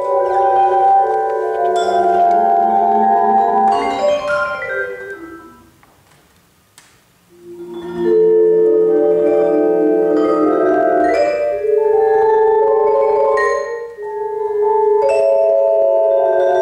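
Vibraphone played with mallets: quick clusters of struck notes left ringing on together. The sound dies away almost to silence about five seconds in, then a new loud flurry starts about two seconds later, with a short dip and another flurry near the end.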